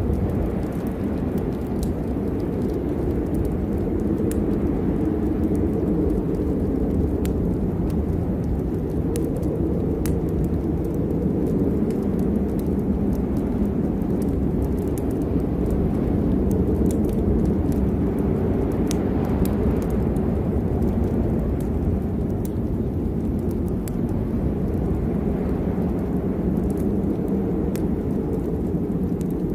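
Steady rain with a deep, continuous low rumble and scattered sharp drop ticks.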